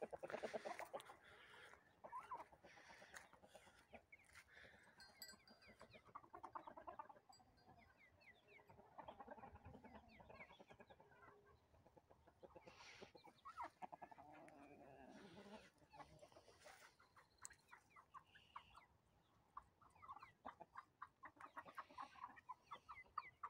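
Chickens clucking faintly, scattered runs of quick low clucks and short calls coming and going.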